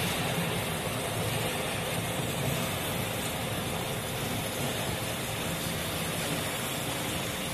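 C6151 lathe running at steady speed, its spindle and gearbox giving an even mechanical hum with a faint steady whine.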